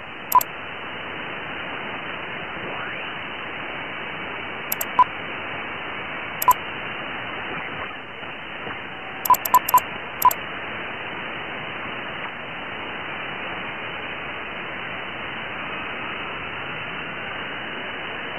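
Steady radio-receiver hiss from a remote Icom IC-7100 tuned to single sideband (LSB) on the 40 m band. It has a narrow, muffled sound with the treble cut off. Seven short high beeps are scattered through it, with four of them close together about ten seconds in.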